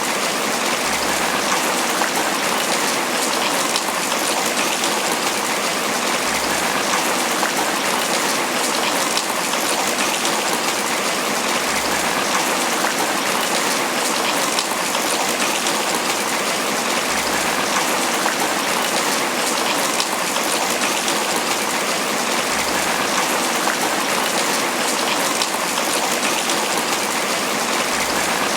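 Steady tropical rain falling on banana leaves: an even, dense patter of drops on the leaves.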